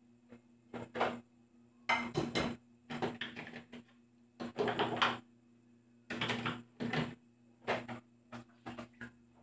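Dishes clattering as plates are handled and set into a plastic dish rack during washing-up: about six short bursts of clinks and knocks, roughly one every second or so.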